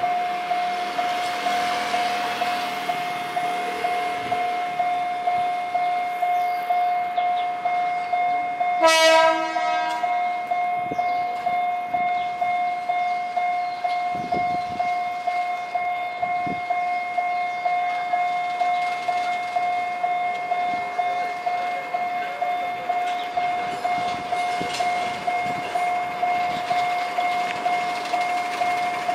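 An electronic crossing warning alarm sounds throughout at one steady pitch, pulsing in a regular repeating beat. About nine seconds in, the Diema 129 diesel locomotive gives one horn blast of about a second, the loudest sound.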